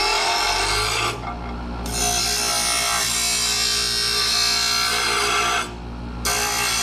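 Bench grinder running with a metal bar pressed against its grinding wheel: a steady, loud rasping grind over the motor's hum. Twice, about a second in and again near the end, the bar comes off the wheel for under a second and only the motor's hum is left.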